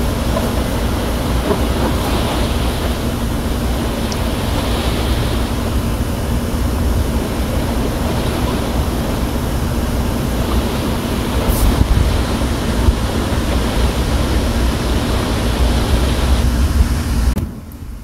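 Ocean surf ambience: a deep, steady rush of waves with gently swelling hiss, dropping off sharply near the end.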